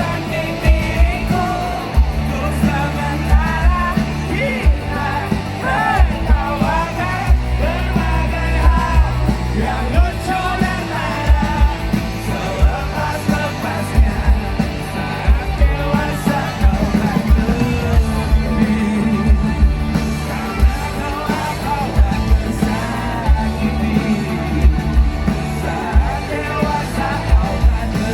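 A band playing loud music with a steady drum beat, with a voice singing over it.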